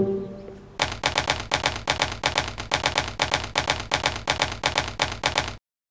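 The last note of a bowed double-bass music cue fading out, then a typewriter sound effect: a steady run of key strikes, about four a second. It stops abruptly near the end.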